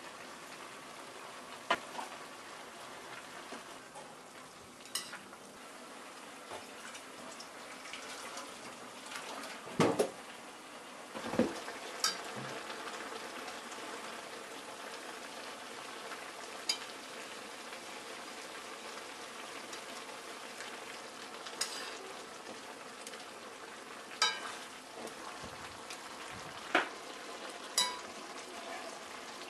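Pork and vegetables sizzling in a stainless steel frying pan as they are stir-fried. About ten sharp clinks and knocks of utensils against the pan cut through the steady sizzle, the loudest about a third of the way in.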